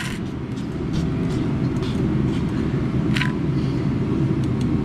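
Steady low rumble of a running vehicle, with a faint click about three seconds in.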